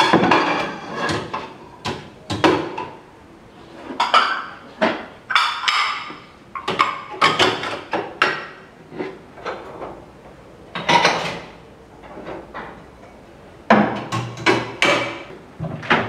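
Ceramic plates being slotted into a stainless-steel dish rack, knocking and clinking against the steel rails and against each other in a string of irregular, sharp clatters.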